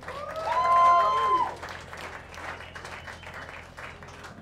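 Small audience applauding, with a voice cheering loudly over the first second or so.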